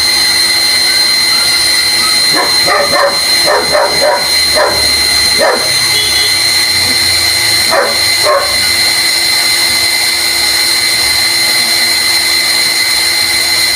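Primed electric water pump running steadily under load, a constant motor whine with a steady noise, building pressure toward its pressure-switch cut-off at about 30 psi. A string of short, sharp calls cuts across it a couple of seconds in and again briefly near eight seconds.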